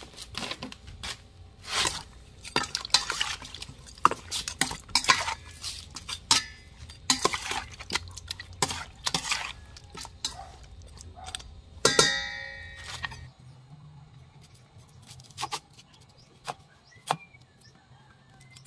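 A metal spoon clinks and scrapes in a stainless steel bowl, stirring tuna tail pieces in a vinegar marinade. About twelve seconds in, one louder clank rings on briefly. Near the end a few light, scattered knocks follow.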